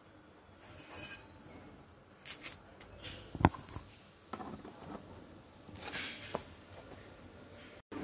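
Dry rolled oats rustling as they are scooped with a ceramic cup in a steel bowl, in short scattered bursts, with one sharp knock about midway.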